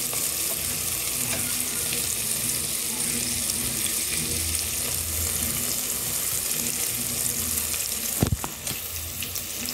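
Chopped tomato, onion, bell pepper and crushed garlic sizzling steadily as they sauté in a frying pan, stirred with a silicone spatula. A brief knock about eight seconds in.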